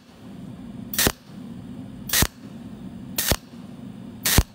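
Pulsed cold welder (a TIG-type welder with a tungsten electrode) firing spot-weld pulses on thin stainless steel sheet with filler wire added: four sharp zaps, about one a second, with a low hum between them.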